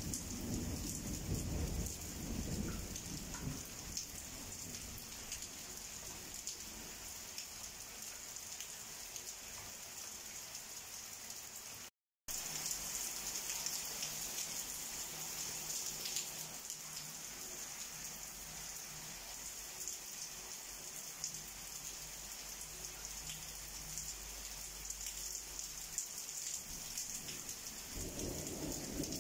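Heavy rain falling steadily, with a low rumble of thunder in the first couple of seconds and another starting near the end. The sound drops out for a split second about twelve seconds in.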